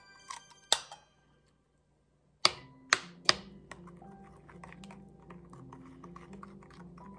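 A metal spoon clicking and ticking against a glass mixing bowl while an egg is stirred into a thick honey-and-molasses mixture, with three sharp clicks in quick succession a few seconds in. Soft background music runs under the stirring.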